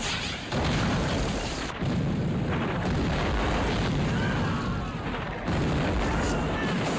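Artillery shells exploding in a battle bombardment: three sudden blasts, about half a second, two seconds and five and a half seconds in, each running on into a long rumble.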